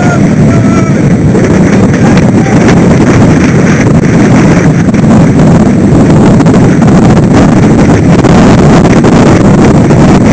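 Strong wind buffeting the microphone of a camera aboard a racing sailboat, a loud, steady, rumbling rush with no break.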